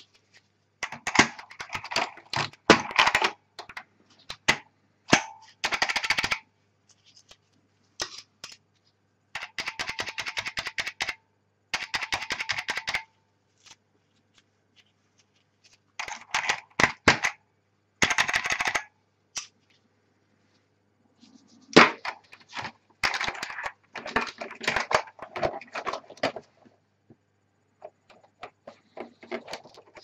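White Alps key switches on an NTC KB-6252 mechanical keyboard being typed in rapid runs of clicks, in bursts of a second or two with short pauses between. The switches sound scratchy, from dirt left by years of use in a cement plant.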